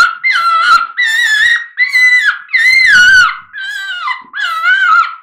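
Quaker Boy Double Dog predator call, squealer side, blown in repeated squalls that imitate a prey animal such as a rabbit crying in distress. About seven loud, high cries come one after another, each dropping in pitch.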